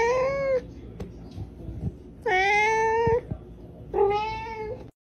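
A cat meowing three times in long, drawn-out meows, each close to a second long.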